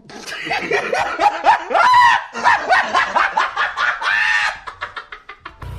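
An animal vocalizing: a quick series of rising-and-falling calls that break into rapid short pulses near the end.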